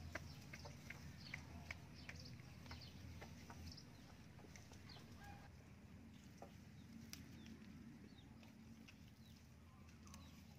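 Near silence, with faint short bird calls scattered through it.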